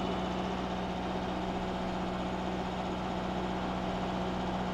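A sailboat's engine running steadily while motoring under way, an even, constant hum.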